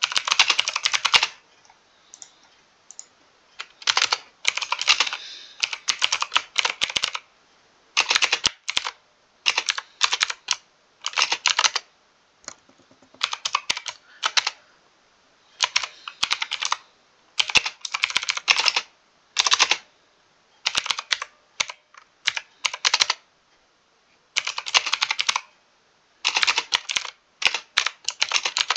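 Mechanical keyboard typing: fast runs of key clicks in spurts of a second or two, broken by short pauses.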